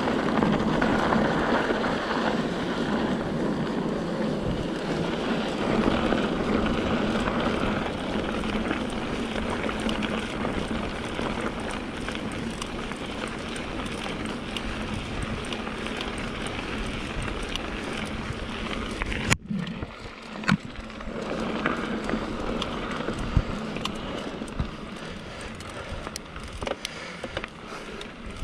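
Mountain bike rolling along a dirt trail: steady tyre and wind noise on the microphone, with scattered clicks and rattles from the bike. The noise cuts out for a moment about two-thirds of the way through.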